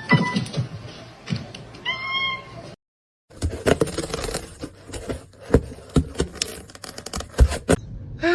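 A cat meows once, briefly. After a short break comes a run of irregular clicks and knocks, and a second meow comes right at the end.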